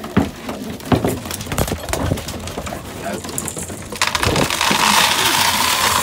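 Knocks and clatters of a feed container and wooden trough being handled in a pigeon loft. About four seconds in, a steady rattling rush starts as grain feed is poured into the trough.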